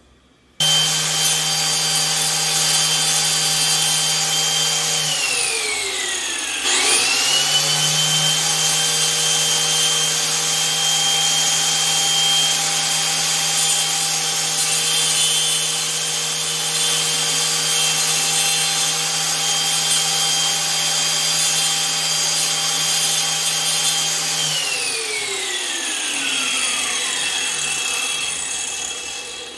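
Angle grinder with a cutting disc starts up and runs at full speed, its steady whine mixed with the hiss of the disc cutting ceramic tile. About five seconds in it is switched off and begins to spin down, then is switched straight back on; near the end it is switched off and winds down over a few seconds.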